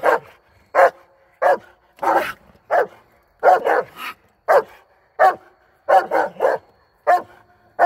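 A coonhound barking treed at a raccoon hidden under a side-by-side's fender: a steady run of short, loud barks, about one every second or a little faster, some coming in quick pairs or triples.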